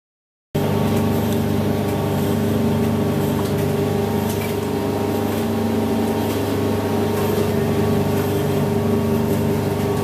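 IPSO 25 lb commercial front-loading washing machine running a hot wash: a steady motor hum with several held tones and a noisy haze over it.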